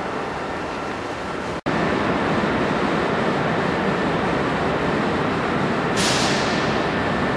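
Steady noise of electric trains in a large station, with a faint steady whine. It cuts out for an instant about one and a half seconds in. About six seconds in, a sudden hiss sets in and slowly fades.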